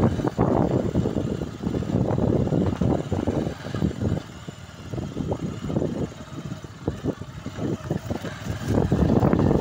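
Motorcycle running at low speed over a bumpy dirt track: an uneven engine rumble with knocks and jolts from the ride. It is louder at first and again near the end, and quieter in the middle.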